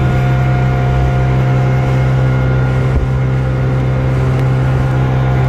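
Boat's outboard motor running at a steady speed, driving the boat along.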